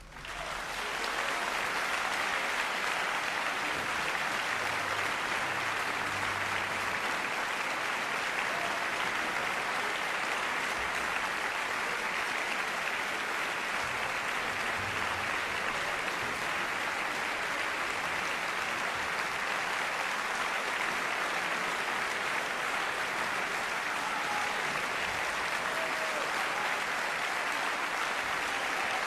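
Large concert-hall audience applauding, building within the first second or two to steady, sustained clapping at the end of an orchestral piece.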